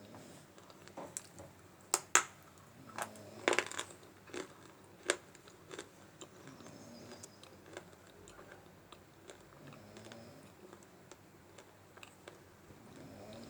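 Dry multani mitti (Fuller's earth clay) bitten and crunched between the teeth: a run of sharp crunches in the first five seconds, then fainter chewing clicks.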